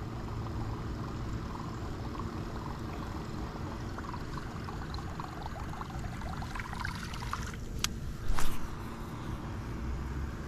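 Steady low rumble of wind on a phone microphone beside a pond. Faint clicking and rustling build from about four seconds in, then a sharp click and a short, louder rustle come about eight seconds in.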